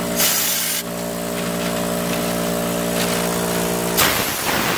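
Air-powered schutz spray gun spraying Raptor bed liner in two short hissing bursts, one just after the start and one near the end, over the steady hum of a running air compressor.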